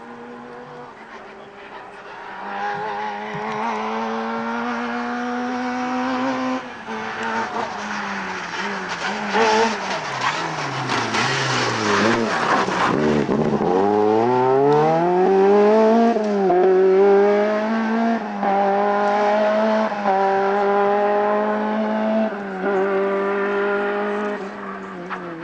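Rally car engine revving hard and shifting up through the gears, the pitch climbing and dropping back at each shift. In the middle the note falls away as the car brakes and shifts down for a corner, then it climbs again through several quick upshifts.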